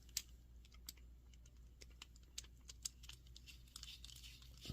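Faint, irregular small metal clicks and taps as tiny screws are fitted and driven into a ratchet head's cover plate, with one sharper click just after the start.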